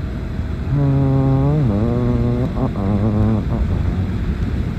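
Motorcycle riding noise, a steady low rumble of engine and wind heard through a phone inside the rider's helmet. About a second in, a long humming tone starts; it drops in pitch partway through and is followed by a few shorter wavering tones.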